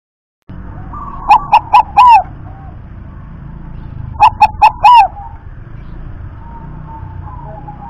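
Caged zebra dove (perkutut) cooing: two song phrases, each three short notes followed by a longer rolling final note, about three seconds apart.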